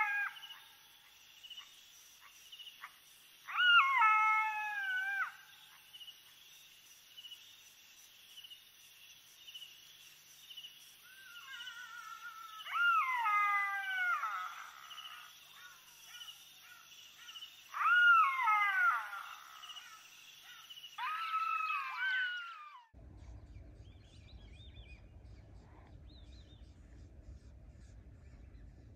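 Black-backed jackals calling at night: about five high wailing calls, each falling in pitch, some with several animals overlapping, over a steady high insect trill. Near the end the calls and trill stop abruptly and give way to a faint low rumble.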